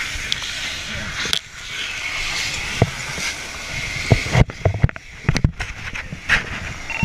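A firefighter working a hose line in a smoke-filled house: a steady hiss, then a cluster of knocks and bumps from the gear and hose being handled in the second half.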